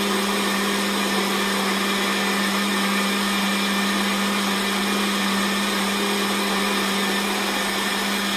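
Countertop blender running at a steady speed, blending a thick, liquid carrot-and-oat punch mixture: a steady whir over an even motor hum.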